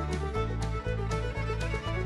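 Background music: a melody over a steady bass line and beat.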